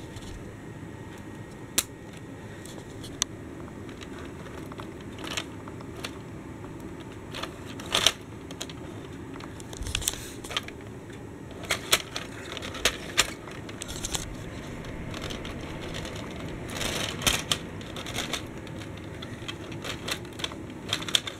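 Yellow plastic toy train on Lego wheels being pushed by hand along plastic toy track: irregular plastic clicks, knocks and rattles, a few sharper ones around the middle, over a steady low background hum.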